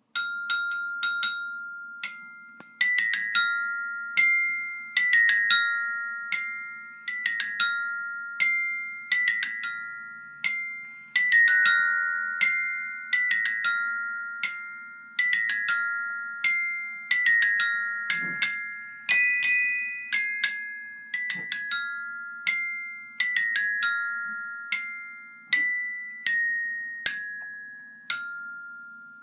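Tuned mallet percussion playing a slow, gentle melody in short phrases of two or three notes, each struck note ringing on into the next, fading out near the end.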